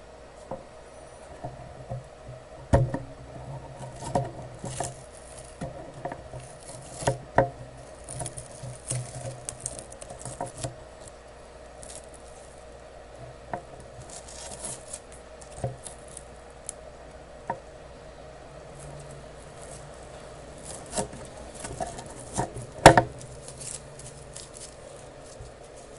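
Bench soldering work on a circuit board: scattered small clicks and taps of hand tools, irregular, with the sharpest click about 23 seconds in. A steady electrical hum runs underneath.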